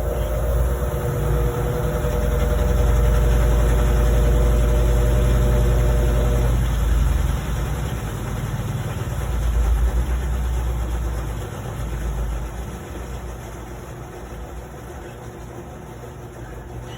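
Electrolux LT09E washing machine running, with a deep hum and a steady motor whine. The whine stops about six seconds in, and the machine then runs more quietly, with a brief swell partway through.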